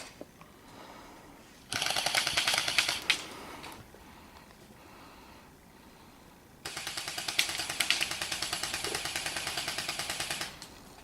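Airsoft electric guns firing on full auto: a burst of about two seconds, then after a pause a longer burst of nearly four seconds, each a fast, even rattle of shots.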